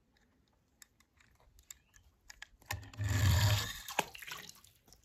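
A toy car dropping into a pool of water: a splash lasting about a second, about three seconds in, among faint drips and clicks, with a sharp knock just after.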